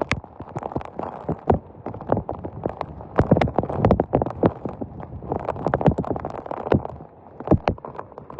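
Heavy thunderstorm rain, with large drops striking close by in a dense stream of irregular sharp taps over a steady hiss.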